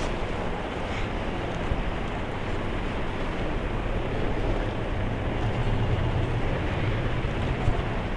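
Steady background noise, an even hiss over a low rumble, with no speech.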